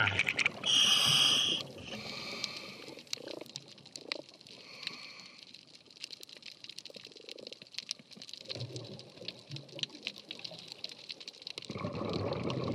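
Underwater reef sound heard by a scuba diver: a loud hiss of breath through the regulator about half a second in, a scatter of sharp clicks and crackles, and low bubbling rumbles of exhaled bubbles near the end.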